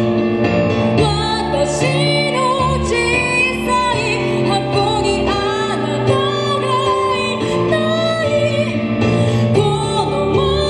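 Female vocalist singing a song live, with held, wavering notes, accompanied by chords played on a Korg Kronos X keyboard.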